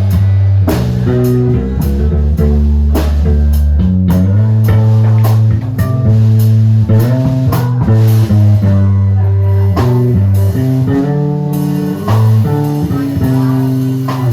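Live blues band playing: electric guitar and bass guitar over a drum kit.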